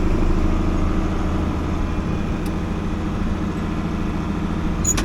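Tractor's diesel engine running steadily, with a short sharp click near the end.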